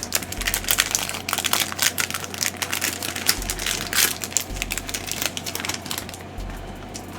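Rapid crinkling and rustling of a trading-card pack wrapper being handled and opened, dying away about a second before the end.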